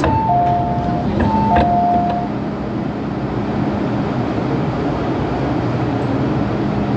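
Inside an MTR M-Train electric multiple unit carriage: a two-note descending chime sounds twice in the first two seconds. Under it, the steady running noise of the train goes on with a low motor hum.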